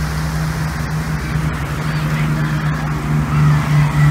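Piston engines of a three-aircraft warbird formation, a large bomber flanked by two fighters, droning low over the sea and growing louder, with a pulsing beat between the engines in the second half.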